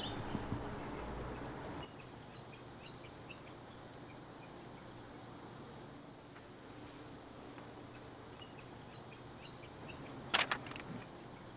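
Quiet outdoor ambience with faint chirping insects and a thin, steady high whine. The background drops quieter about two seconds in, and a single sharp click comes near the end.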